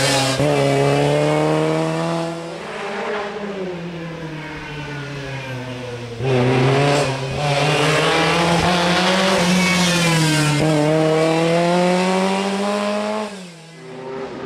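Historic rally cars racing past one after another on a closed stage. The first car's engine note falls away as it leaves. A second car arrives suddenly about six seconds in, its engine climbing in pitch under acceleration with a gear change, then fading near the end.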